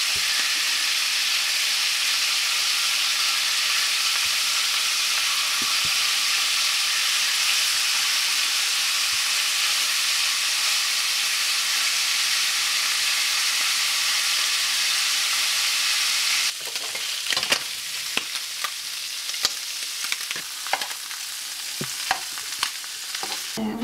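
Abalone frying in butter in a pan: a steady, loud sizzle. About 16 seconds in it drops to a quieter sizzle, broken by clicks and knocks of chopsticks against the pan as the pieces are picked up.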